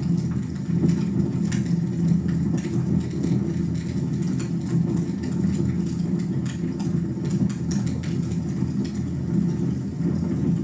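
Wood fire burning in a fireplace: a steady low roar of the flames with scattered sharp crackles and pops.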